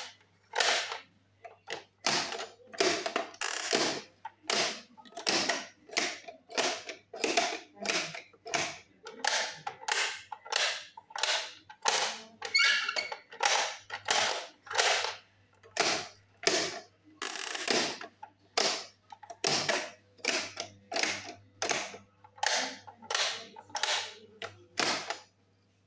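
Plastic pop-up toys clicking and snapping as their buttons and levers are pressed and spring-loaded figures and egg lids pop up, a sharp click about every second or faster.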